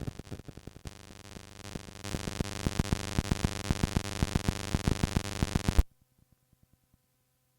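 Cassette tape playback: a sudden loud burst of noisy, music-like sound with a rapid, even pulse, growing louder about two seconds in and cutting off abruptly near six seconds. Only faint, regular ticking is left after it.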